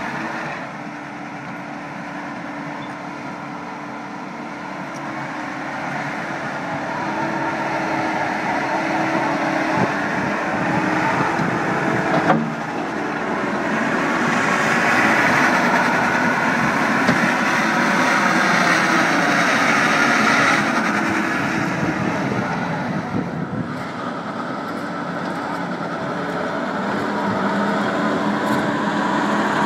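Takeuchi TL150 track skid steer's 97-horsepower diesel engine running as the machine is worked, its level swelling and easing over several seconds. One sharp knock about twelve seconds in.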